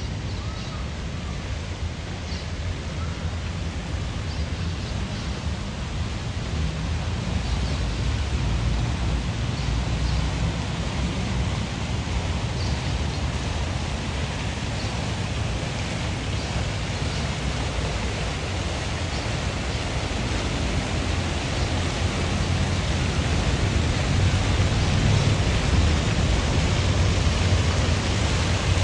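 A steady rushing noise with a deep rumble underneath, slowly growing louder in the second half, with faint scattered ticks.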